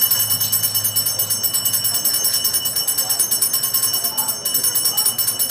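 Afro-Brazilian Batuque ritual percussion: metal bells or jingles shaken in a fast, even rhythm, ringing continuously at high pitch.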